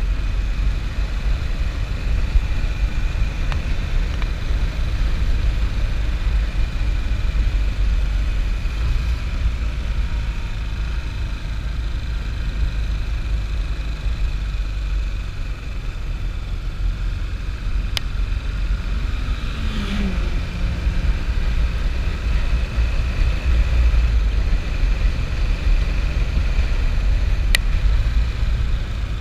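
Motorcycle running at a steady cruise along the road, its engine mixed with heavy low wind rumble on the rider's camera microphone. Two sharp clicks come through later on.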